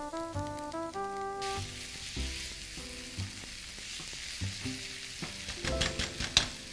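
Chopped meat, onion and garlic sizzling in a frying pan while a spatula stirs it. The sizzling comes in about a second and a half in, and the spatula knocks and scrapes against the pan several times near the end, over light background music.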